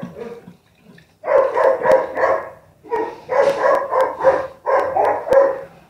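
Caged dogs barking repeatedly in quick runs of short barks, starting about a second in.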